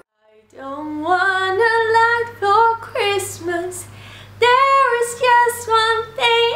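A woman singing a melody alone, without accompaniment, starting about half a second in after a brief silence, with long held notes that slide between pitches.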